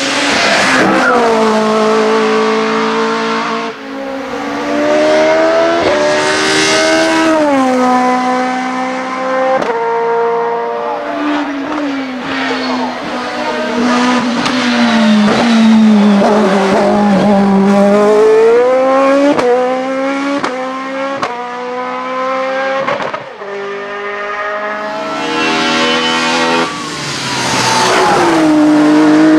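Hillclimb race car engines at full throttle, one car after another: first an Opel Kadett, then a single-seater racing car around the middle, then a Ford Escort RS 2000 near the end. Each engine revs high and drops in pitch at each upshift, several times over.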